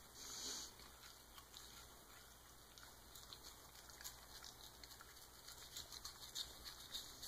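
Faint scratching and irregular small clicks of a toothbrush scrubbing a dog's teeth, the clicks coming more often in the second half.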